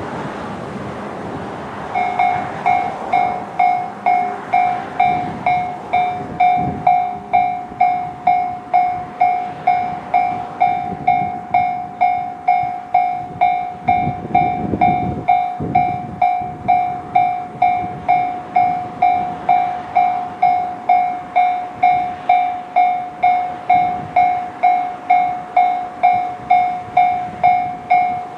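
Japanese railway level-crossing alarm sounding the JR standard electronic bell: it starts about two seconds in and rings steadily at about two strikes a second, each a bright ding that fades before the next. Traffic noise is heard before it starts, and a brief low rumble comes near the middle.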